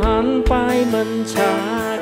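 Live band playing an instrumental passage: a lead melody with wavering, bending notes over sustained chords, with a couple of drum hits.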